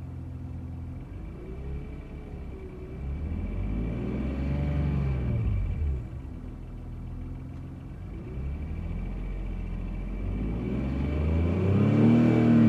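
BMW E46 328i straight-six engine idling and being revved twice, climbing to a peak about four seconds in, dropping back to idle, then climbing again near the end. The car has a rattle that appeared after a new lightweight flywheel was fitted; the owner finds nothing wrong with the flywheel, clutch, gearbox or VANOS and thinks it sounds like a bad injector.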